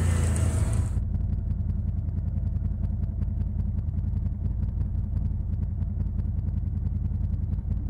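Side-by-side UTV engine running steadily with a low drone. A high hiss over it cuts off abruptly about a second in.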